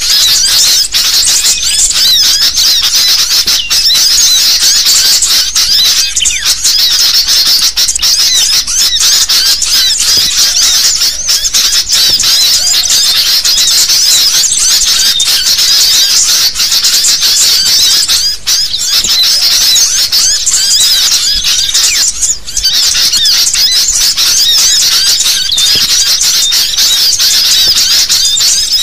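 A dense, unbroken chorus of many sooty-headed bulbuls (kutilang) calling and chattering noisily, high-pitched and loud: a bird-trapping lure recording.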